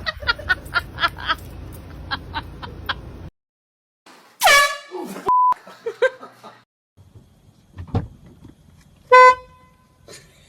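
Handheld air horn blasts from scare pranks. A loud blast about four and a half seconds in slides down in pitch, and a short, steady, loudest blast comes about nine seconds in. Before them there is a run of regular knocks, then a short beep.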